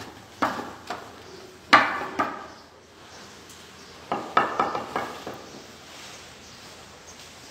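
A Jafrabadi buffalo's hooves knocking and scuffing on a hard concrete shed floor as it shifts and turns: a string of sharp clattering knocks, loudest a little under two seconds in, then another cluster about four to five seconds in.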